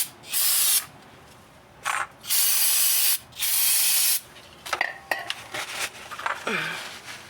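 Aerosol brake cleaner sprayed in four short hissing bursts over the first four seconds, each about half a second to a second long. Light clicks and knocks of handling follow.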